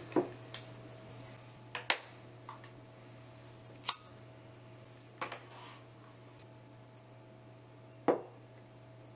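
A glass jar candle and a ceramic mug are set down and handled on a wooden desk, giving five short knocks and clinks. The last and dullest is the mug being put down near the end. A faint steady hum runs underneath.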